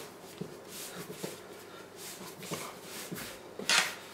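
Sweet bun dough being kneaded by hand on a floured tile counter: soft, irregular thumps and rubbing as it is pressed and folded, with a short, louder hiss near the end.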